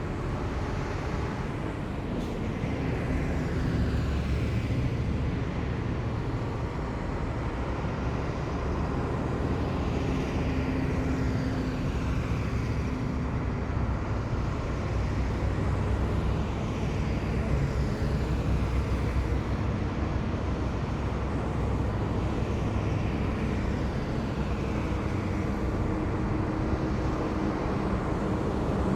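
A column of heavy military vehicles driving past in steady procession: a continuous deep diesel rumble, with the whine of each vehicle falling in pitch as it goes by, one after another.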